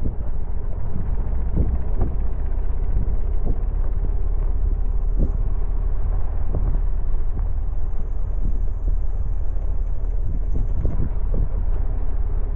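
Steady low rumble of a vehicle travelling along a rough dirt road, with wind buffeting the microphone and scattered knocks from bumps.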